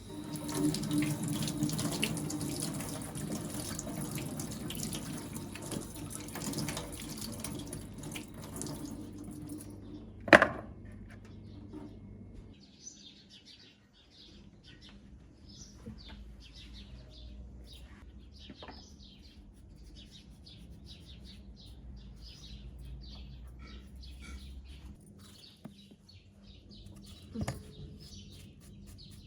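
Water running for about ten seconds, then a single sharp knock. After that, small birds chirping repeatedly, with one more knock near the end.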